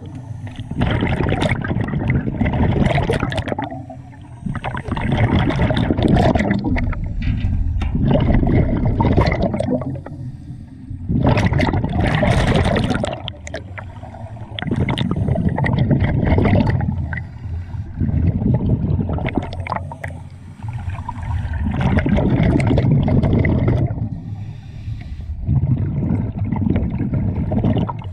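Scuba regulator breathing underwater: loud bubbling, gurgling exhalations in repeated bursts every three to four seconds, with short quieter gaps between them.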